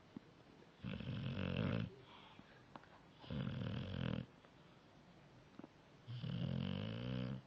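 A dog snoring: three snores about a second long, spaced roughly two and a half seconds apart.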